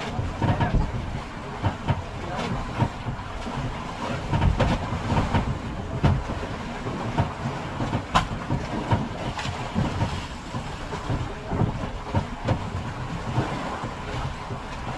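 Small boat underway on the sea: an uneven rumble with irregular knocks and thumps as the hull meets the waves, and wind on the microphone. One sharp click comes about eight seconds in.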